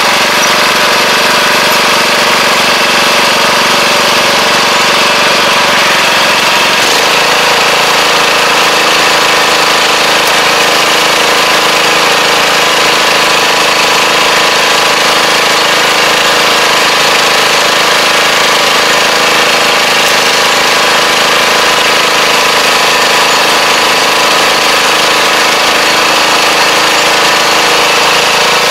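Engine of a Kubota four-row riding rice transplanter running steadily as the machine drives and plants through a flooded paddy; its pitch drops a little about seven seconds in.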